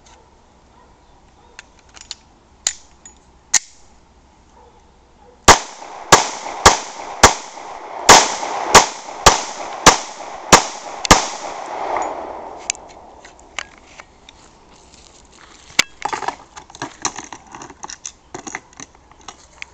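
FMK 9mm pistol firing a string of about ten shots, roughly two a second, each a sharp crack with a ringing tail. Afterwards there are lighter, irregular clicks and clatter.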